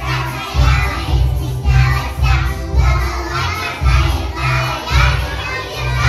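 A chorus of young children singing chastushki, Russian folk ditties, loudly and in unison, almost shouted, over a backing track with a steady bass beat about twice a second.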